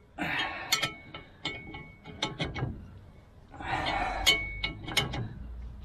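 Scattered metallic clicks, clinks and light knocks of hand tools working on a wheel-hub puller, some clinks ringing briefly, with short scraping noises near the start and about four seconds in.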